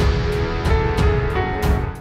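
Intro music with a steady beat, fading out sharply at the very end.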